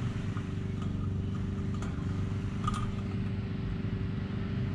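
An engine running steadily at an unchanging pitch, with a few light clicks in the middle.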